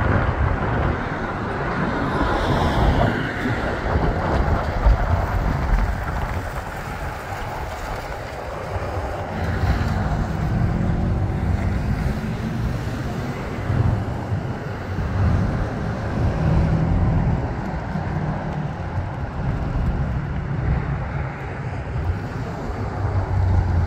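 1990 Ford Ranger pickup driving, its engine running with a low rumble and the engine note climbing about ten seconds in, with wind buffeting the microphone throughout.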